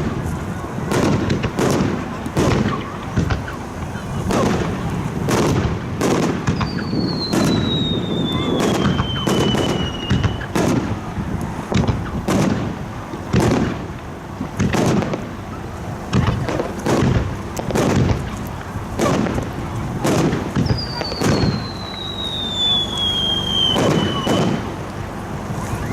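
Aerial fireworks shells bursting in quick, uneven succession. Twice a long whistle slides down in pitch over several seconds among the bursts.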